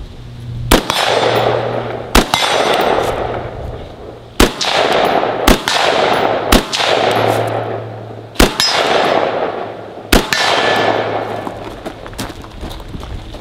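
Seven rifle shots at an uneven pace, one to two seconds apart, each followed by the ringing clang of a struck steel target.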